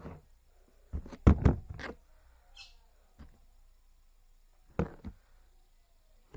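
Knocks and bumps from handling things on a table: a quick cluster of loud knocks about a second in, a brief faint squeak, then another pair of knocks near the end.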